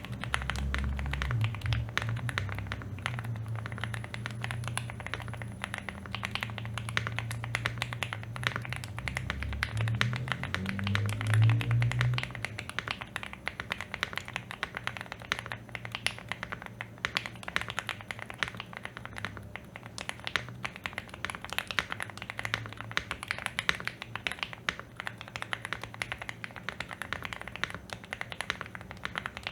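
Typing on a Shortcut Studio Bridge75 PLUS mechanical keyboard fitted with stock Gateron Snow Rabbit linear switches, stock stabilizers and stock keycaps: a rapid, continuous patter of keystrokes. A low hum sits underneath for about the first twelve seconds.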